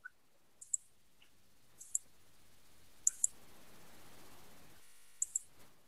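Computer mouse button clicking: two single light clicks, then two quick pairs of clicks.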